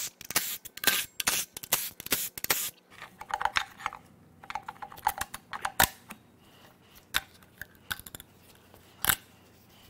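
Hand tools working the water pump bolts off an engine: rapid clicking of a ratchet for the first few seconds, then scattered metal clinks and taps.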